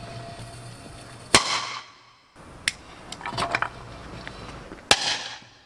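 Two firecracker bangs inside a 1.5-litre plastic bottle, small Minerva-type flash bangers. Each is a single sharp crack with a short ringing tail, the first about a second in and the second near the end, with a few light scuffs and taps between them.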